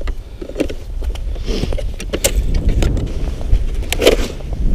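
Wind rumbling on the microphone, with several sharp clicks and knocks as an ice-fishing rod and reel and other gear are handled on the ice.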